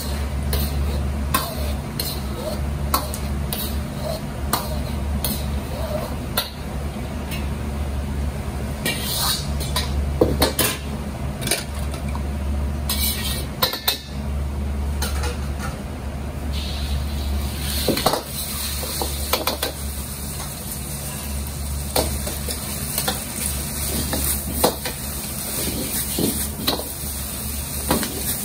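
Metal ladle clanking and scraping against a carbon-steel wok over a high-heat gas wok burner, with a steady low rumble under it. Food sizzles in the oil, with a louder hiss in the second half as the fried rice is stir-fried and tossed.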